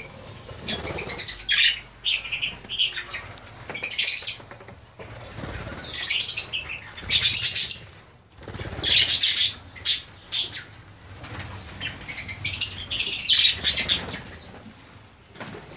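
A group of lovebirds chattering in repeated bursts of shrill, high chirps, with wings flapping among them.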